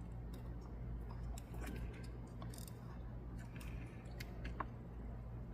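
Scattered faint clicks and scrapes of hands working at a plastic ignition coil connector and its wires, over a steady low hum.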